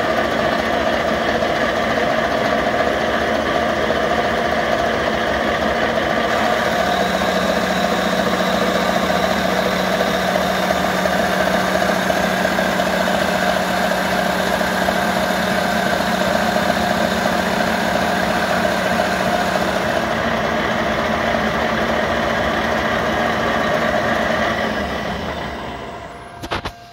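Bridgeport-style CNC mill spindle running steadily while an end mill cuts a metal block. The spur gears in the head run louder than the owner would like, which he puts down to their loose tolerance. The head also vibrates, which he suspects comes from an old belt or a poor bearing. The sound fades away near the end.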